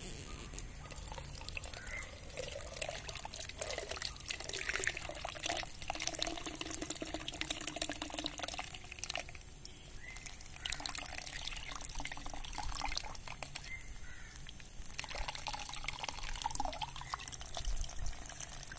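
Running water splashing into a mesh tea strainer and trickling through into a plastic cup, rinsing vinegar off decapsulated brine shrimp cysts.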